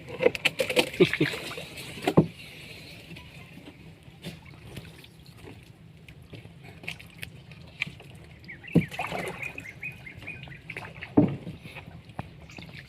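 Water splashing and sloshing, with sharp knocks and clatters clustered in the first two seconds and louder strokes about nine and eleven seconds in.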